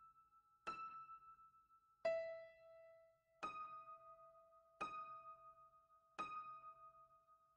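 Faint, slow piano music: single notes struck about every second and a half, each ringing and fading before the next.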